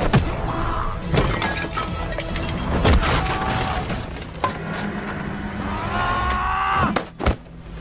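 Fight-scene film soundtrack: music under a string of about five sharp punch, hit and smash effects, with wood breaking.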